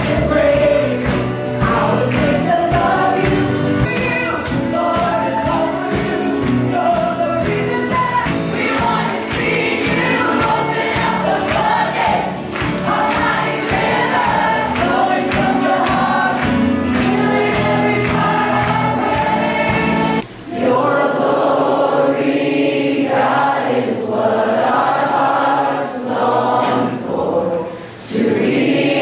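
Crowd singing a Christian worship song with a live band. About twenty seconds in, the band's low end drops away and the voices carry on over lighter backing.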